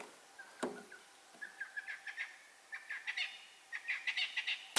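Birds giving short, repeated chirping calls, growing busier toward the end, after two soft clicks in the first second.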